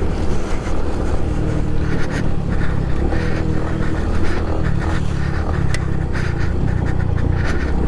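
Honda Pop 110i's small single-cylinder four-stroke engine running under way on a rough dirt trail, with scattered clicks and knocks from the bike over the uneven ground.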